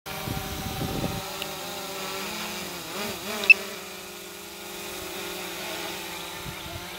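Quadcopter drone hovering, its propellers giving a steady multi-pitched whine that wavers up and down as the motors adjust speed. A single sharp click about halfway through.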